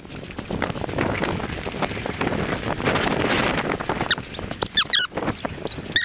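Mountain bike rolling fast downhill over rocky dirt singletrack: steady tyre-on-gravel noise with rattling knocks and wind on the microphone. A few short high squeaks come in near the end.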